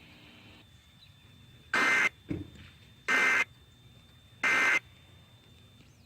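Three short bursts of EAS SAME digital data tones, about a second and a half apart: the end-of-message code that closes the tornado warning broadcast.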